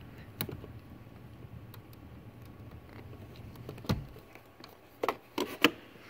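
Scattered small clicks and taps of metal pliers against plastic as a micro fuse is pushed back into a car's dashboard fuse box. The loudest is a knock about four seconds in, followed near the end by a few quick clicks.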